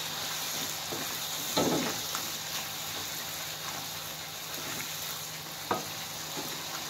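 Ground spice paste sizzling in hot oil in a wok while a silicone spatula stirs it, with two louder knocks of the spatula against the pan, about one and a half seconds in and near the end.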